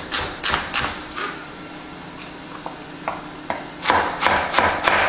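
Kitchen knife dicing celery stalks on a wooden cutting board, each cut a sharp knock of the blade on the wood. A few quick cuts come at the start, then a pause with a few light taps, then a faster run of cuts near the end.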